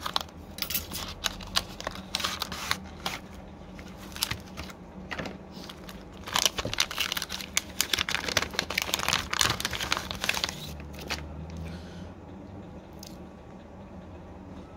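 Replacement phone screen being unpacked: the seal of its cardboard box tearing open amid handling clicks, then a plastic bag crinkling, loudest for a few seconds in the middle, with quieter handling near the end.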